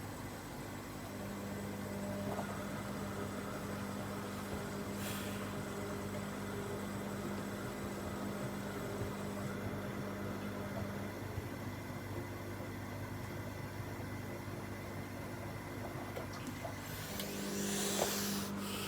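Washing machine running a wash: the drum motor hums steadily for about ten seconds, pauses, and starts again near the end, with brief swishes of laundry and water in between.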